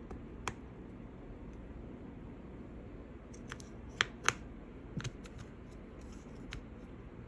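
Small sharp plastic clicks as a replacement MacBook Pro speaker module and its cable connector are pressed into place by hand, about seven in all, the loudest two close together about four seconds in.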